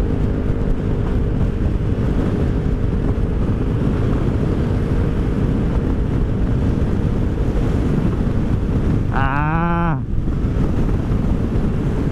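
Rusi Rapid 150 scooter's single-cylinder engine running through an aftermarket full-system exhaust with its silencer fitted, heard while riding, under heavy wind rush on the microphone. About nine seconds in there is a brief pitched call that bends in pitch.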